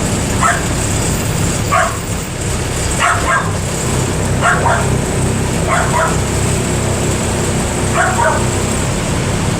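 A dog barking about six times, some barks in quick pairs, over the steady low running of a Mercedes-Benz OF 1318/51 bus's diesel engine.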